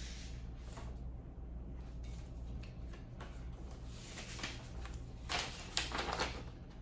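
Paper rustling as a packing slip is picked up and handled, busiest in the last few seconds.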